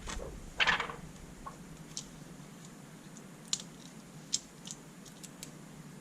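Light handling noises from cleaning a thin plastic LCD diffusion sheet: a short rustling wipe under a second in, then a few faint scattered clicks and taps.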